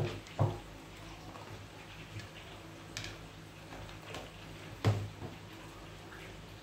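Golden retriever eating dry kibble from a plastic bowl on a tiled floor: scattered crunches and clicks as he chews, with three dull knocks of the bowl, two at the very start and one about five seconds in.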